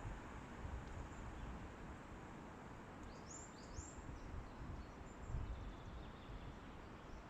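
Wind in the forest, rumbling low on the microphone under a steady hiss; about three seconds in, a small bird gives two short, high calls.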